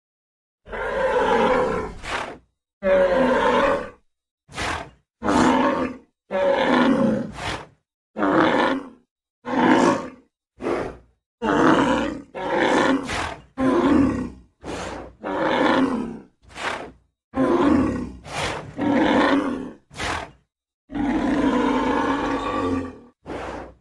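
Bull bellowing over and over: a string of about twenty calls, from short grunts to long bellows, each cut off sharply with a brief silence between.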